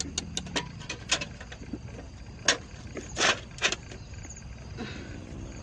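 Clicks and rattles of a woven bamboo trap being handled while its tie cord is worked loose: a quick run of small clicks in the first second, then a few louder knocks and a short scrape between about two and a half and four seconds in.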